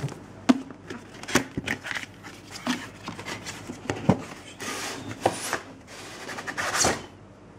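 A cardboard graphics-card box being opened and handled: scattered knocks and taps of cardboard, with two brief scraping rustles of cardboard sliding against cardboard in the second half.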